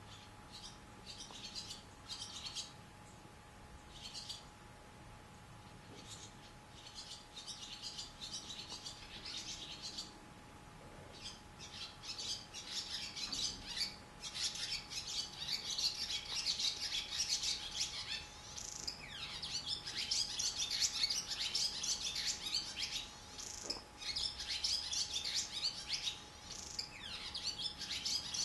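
Barn swallows twittering. Scattered chirps at first grow into dense, continuous chatter from about halfway through.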